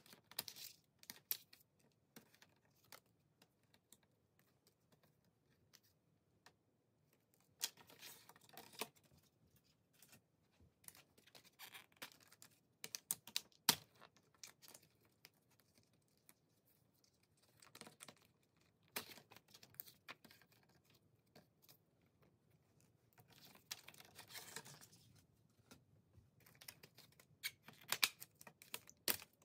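Plastic CD jewel cases being opened and handled: scattered irregular clicks and clacks of the hard plastic case and disc tray, with short rustles of paper inserts and photocards sliding out.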